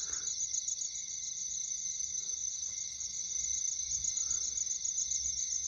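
Chorus of night insects: a steady, high-pitched shrill trilling with no break.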